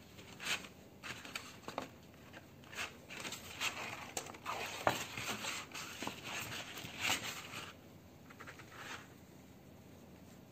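Sheets of paper and card being handled and folded in a picture frame: irregular rustling and crinkling with light knocks, dying down about eight seconds in.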